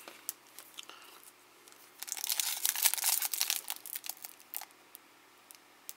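Plastic wrapper of a Topps trading card pack crinkling in the hands: a few small crackles, then a second or so of dense, louder crinkling about two seconds in, then occasional light crackles.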